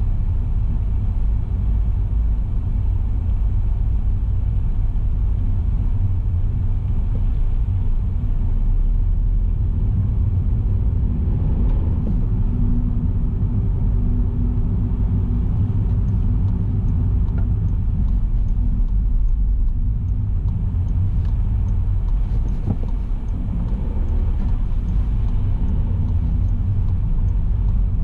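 A car driving, with a steady low rumble of road and engine noise.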